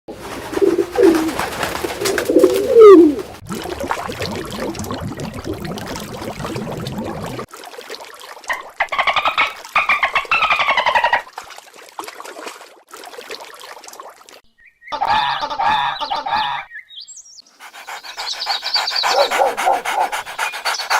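A run of separate animal calls, mostly bird-like, cut abruptly one after another: gliding calls near the start, then falling calls about nine to eleven seconds in, and more calls from about fifteen seconds on.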